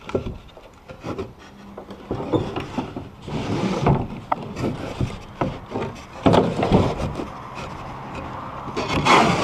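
Plywood boat frames scraping and knocking against each other as notched pieces are slid down into each other's slots, in irregular wooden clunks and longer rubbing scrapes.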